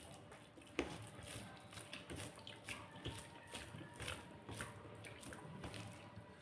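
Close-up eating sounds: wet chewing and mouth clicks, several a second, with one sharper click about a second in.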